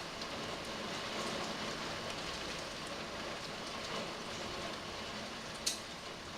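Heavy thunderstorm rain falling steadily, with scattered sharp ticks of drops or hailstones striking, and one louder sharp hit near the end.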